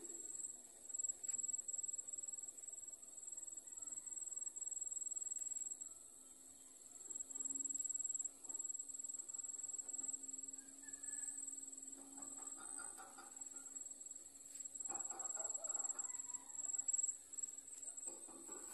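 Insects droning steadily at a high pitch in the field, with two short pitched calls or voices about twelve and fifteen seconds in.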